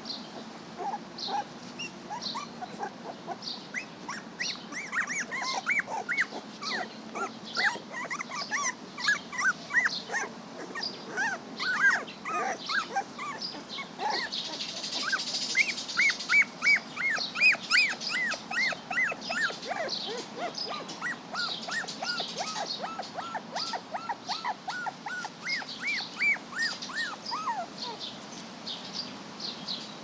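Puppies squealing and yipping in quick runs of short high-pitched cries while they play-fight, loudest around the middle, with birds singing.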